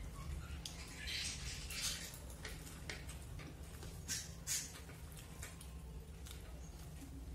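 Eating by hand: fingers mixing and squishing rice on plates, with many small wet clicks and a few brief hissy bursts, over a low steady hum.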